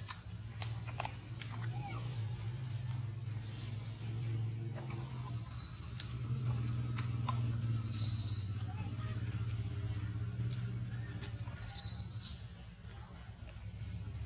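Outdoor ambience: a steady high-pitched pulsing drone over a low hum, with a few faint clicks early and two short high chirps, about eight and twelve seconds in, that are the loudest sounds.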